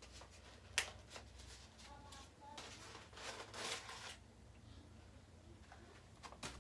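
Faint rustling and crinkling of a potted plant's packaging being unwrapped by hand, with a sharp click about a second in and a louder rustle about three seconds in.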